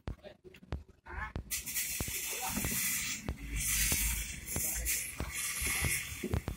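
Handling noise from a plastic car tail light assembly being turned over in the hand: scattered light knocks and clicks, with a steady hiss from about a second and a half in.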